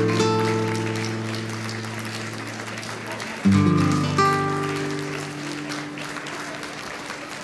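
Background music on acoustic guitar: a chord struck and left to ring out, then another about three and a half seconds in, fading slowly.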